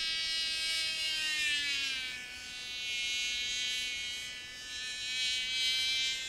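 Cox TD .049 two-stroke glow engine running on an R/C plane in flight, a high-pitched buzzing whine from the tiny engine and its 6x3 propeller. Its pitch dips about a second in, and its loudness swells and fades as the plane flies around.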